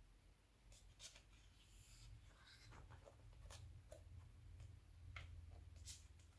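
Faint rustling and soft clicks of magazine pages being handled and turned, over a low steady hum.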